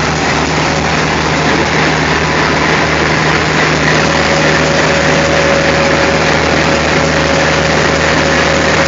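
WDM-class diesel-electric locomotive engine running steadily as the locomotive moves slowly up to the coaches for coupling. It gives a loud, even drone, and a faint steady high whine joins it about halfway through.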